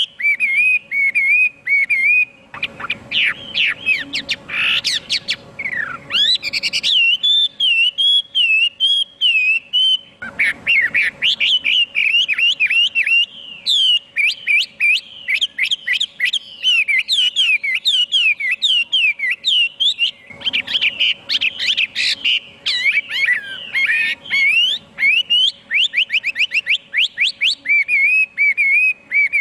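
Chinese hwamei (họa mi) singing a loud, continuous, varied song of rapid whistled phrases and fast trills.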